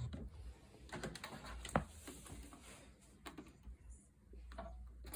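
Quiet room background with a low hum and a handful of scattered clicks and light knocks.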